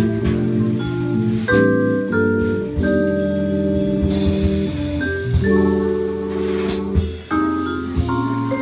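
Vibraphone and drum kit playing jazz together: four-mallet vibraphone chords that ring on and change every second or so, over steady drum and cymbal strokes.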